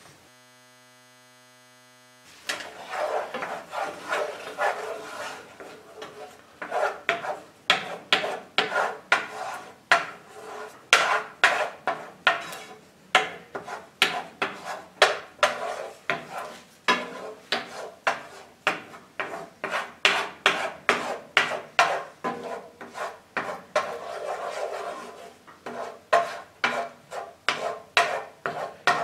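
A wooden spoon stirring and scraping across the bottom of a nonstick skillet of melting butter sauce, in a steady run of short strokes about one to two a second. The strokes begin after about two seconds of near silence.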